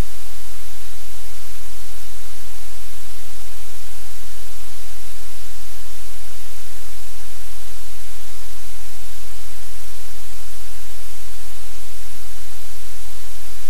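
Loud, steady static hiss from the livecam's audio feed, with a low hum underneath, unchanging throughout.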